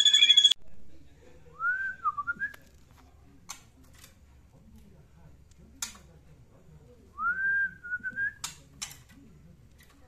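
A loud high-pitched sound cut off abruptly about half a second in, then two short whistled phrases, each gliding up and then wavering, with a few sharp clicks between them.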